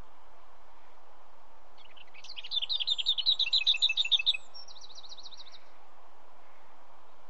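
Lesser whitethroat singing one song phrase about two seconds in: a fast rattling series of repeated notes that grows louder, then a shorter, quieter, higher trill. A steady faint hiss lies underneath.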